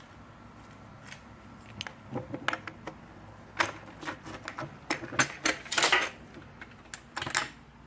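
Irregular clicks and light knocks of hard parts being handled as a new paramotor propeller and its spacer are held in place for fitting. They start about two seconds in and come thickest around six seconds.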